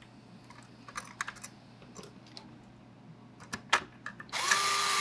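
A few light clicks of small parts and screws being handled, then about four seconds in a small electric screwdriver starts running with a steady whine, driving a 4-40 screw into the blaster's 3D-printed side panel.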